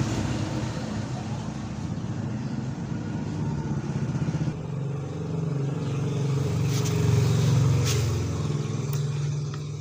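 An engine running steadily with a low hum, getting louder about halfway through and easing off near the end, with a few sharp clicks in the second half.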